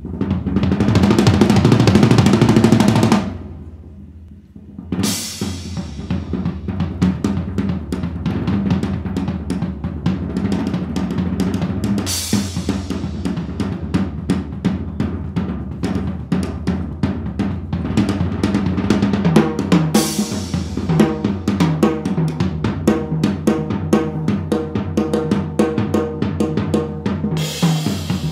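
Live improvised jazz trio of guitar, bass and drum kit. It opens with a loud drum roll and cymbal wash over a held low note that dies away after about three seconds. Then the drums play fast, busy strokes with a cymbal crash about every seven or eight seconds over sustained bass and guitar notes.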